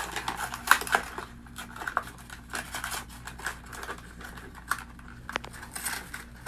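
A Hot Wheels blister pack being opened by hand: irregular clicks, crackles and scrapes of stiff plastic and cardboard, with a sharper snap about a second in.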